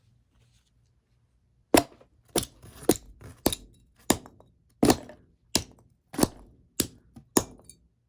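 A run of about ten sharp hammer-like strikes on the metal screw base of an LED light bulb, starting about two seconds in and coming roughly one every 0.6 seconds, each with a short ringing tail.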